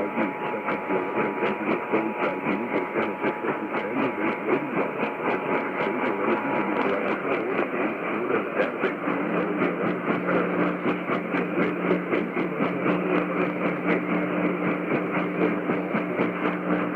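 Emergency Alert System two-tone attention signal (853 and 960 Hz) buried in heavy crackling AM radio static. The tones stop about seven seconds in, leaving the static. A couple of seconds later a low steady hum comes in.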